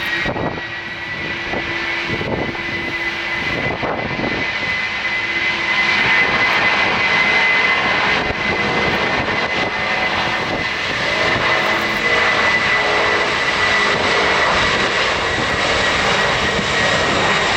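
Jet engines of a Boeing 747-400F freighter running: a steady rushing roar with a clear high whine that rises slightly at the start and then holds. The sound grows louder about six seconds in.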